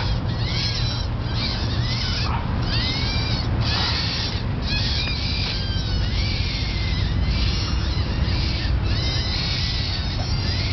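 Animal-call novelty whistle from Mexico blown in repeated squeaky, chirping bursts about once a second, its pitch bending up and down like an animal's call, over a steady low rumble.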